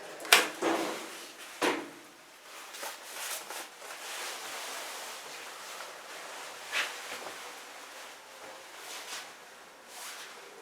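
Toshiba hydraulic passenger elevator: a few sharp clunks of the sliding doors shutting in the first two seconds, then a steady hiss with scattered clicks as the car travels.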